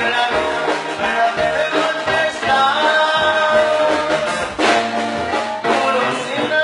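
Latin band music with a steady beat and sustained melody lines.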